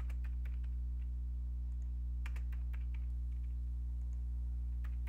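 Computer keyboard typing in a few short runs of keystrokes, over a steady low electrical hum.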